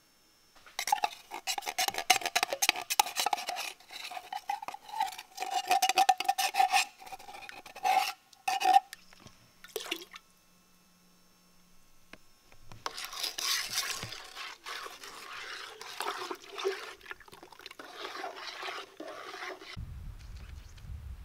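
Ice cream mix being stirred in a metal pot: a utensil scrapes and clinks rapidly against the metal, with a steady ringing tone from the pot, in two long spells. Near the end, wind rumbles on the microphone.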